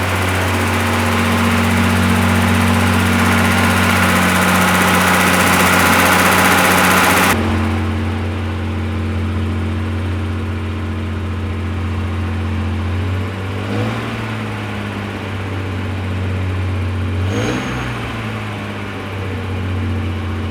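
Old BMW 7 Series straight-six engine idling steadily on freshly cleaned injectors and new injector connectors, running the way it is meant to sound. It is blipped twice, the pitch rising and falling about 13 and 17 seconds in. A loud hiss over the first seven seconds cuts off suddenly.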